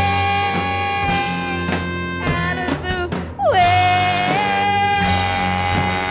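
Live rock band playing, taken straight from the soundboard mix: drums and bass under a lead line that holds long notes. The first long note ends at about a second and a half, and a second one comes in with a downward swoop about three and a half seconds in, bends up, and holds to the end.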